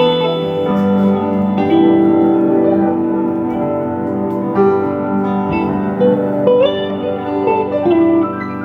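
Instrumental passage of a slow song played live, held chords and melody notes with no singing.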